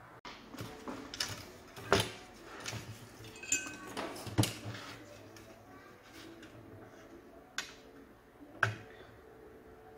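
Scattered light knocks and clicks of a motherboard and soldering tools being handled on a workbench mat: a cluster over the first few seconds, then two sharp clicks near the end.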